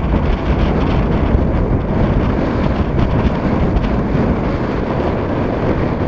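Wind buffeting the camera's microphone: a steady, loud low rumble of noise.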